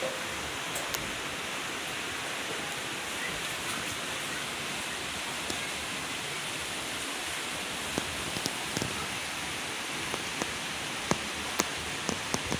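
Steady rain falling, with single drops tapping sharply close by, more often in the second half.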